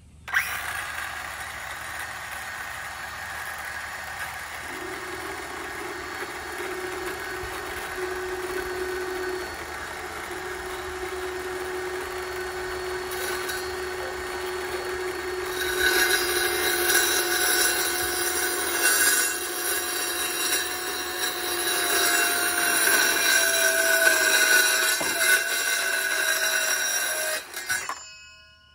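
Cordless circular saw starting up and cutting through a wooden board in one long continuous cut, getting louder past the halfway point, then stopping near the end.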